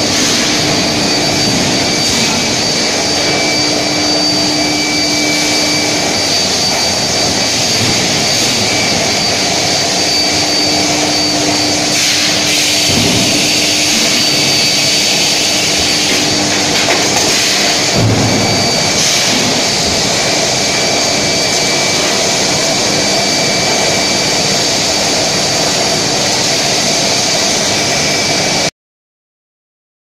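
Induction billet heating furnace line running: a loud steady industrial noise with a high-pitched electrical whine from the induction coils that comes and goes, and a couple of low thumps. It cuts off abruptly near the end.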